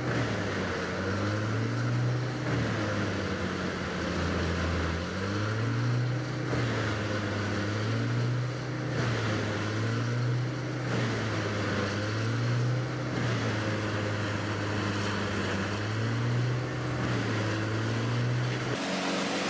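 A heavy machine's engine running under varying load, its pitch rising and falling in a repeating cycle about every two seconds. Near the end it switches abruptly to a steadier engine sound.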